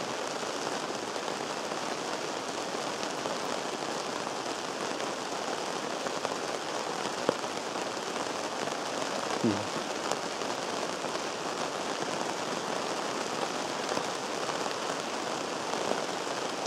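Steady rain falling on the canvas of a big canvas tent, heard from inside: an even, unbroken patter of drops on the fabric, coming down hard.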